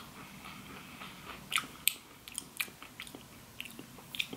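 A person chewing a small crisp heart-shaped biscuit, with a few faint short crunches spread through the chewing.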